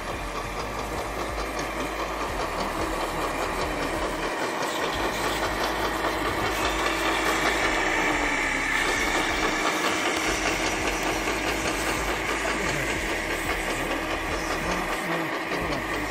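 An engine running steadily with a fine, fast pulsing, swelling louder around the middle of the stretch and easing off a little toward the end.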